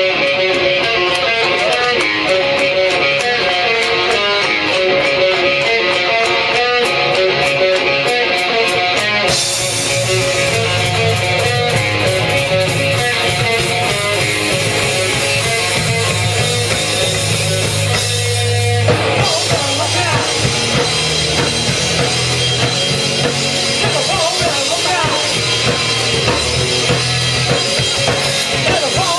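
Live rock band playing: electric guitar alone at first, with drums and bass guitar coming in about a third of the way through, and a brief break before the next section near two-thirds of the way.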